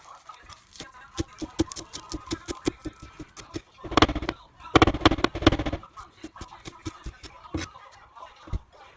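Knife chopping vegetables on a cutting board: a run of even strikes, about three or four a second, speeding up into a fast, louder flurry about four seconds in, then slowing again.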